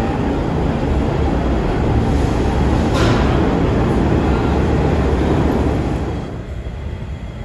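New York City subway train running on the track at the platform: a loud, steady rumble of wheels on rail, with a sharp click about three seconds in. The noise drops off about six seconds in.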